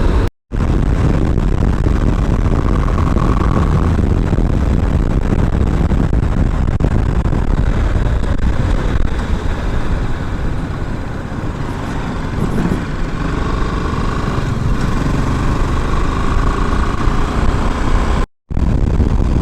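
Riding noise from a moving BMW G310GS motorcycle: a steady rush of wind over the microphone with the single-cylinder engine running underneath. It drops out briefly twice, near the start and near the end.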